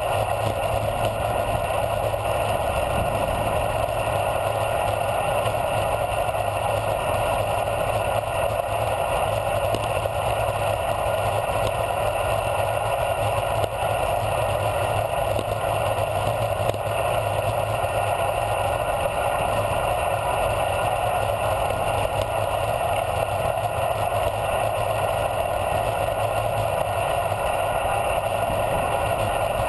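Steady rush of wind across the microphone, with tyre noise from a bicycle descending a paved road at speed.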